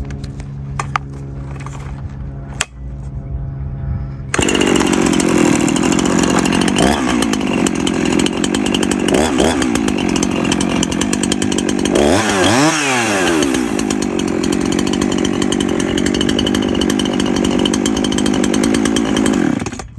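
Small cordless electric mini chainsaw starts suddenly about four seconds in and runs for about fifteen seconds, its pitch dipping a few times as it bogs down under load while cutting wood thicker than it is made for, most deeply a little past halfway, then stops. Before it starts there is a steady low hum.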